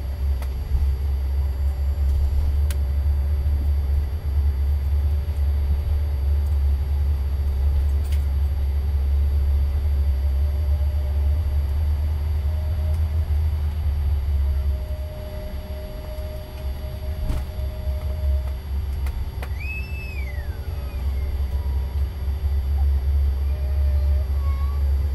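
Cabin noise of a CRJ900 regional jet taxiing: a steady deep rumble from its rear-mounted turbofans and the airframe, with steady whining tones above it. About 20 seconds in, a brief high squeal rises and then falls away.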